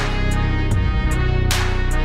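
Instrumental background music with a steady beat, a strong accent at the start and again about a second and a half in.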